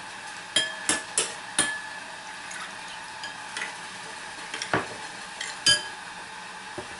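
A metal spoon stirring sauces and water in a ceramic bowl, clinking against the bowl with short ringing tones, four times in the first two seconds and a few more times later. Under it runs a steady faint sizzle of chicken frying in a pan.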